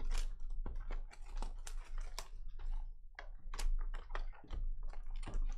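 Plastic shrink wrap being torn and peeled off a sealed trading-card hobby box: a dense, irregular run of crinkling crackles and rustles.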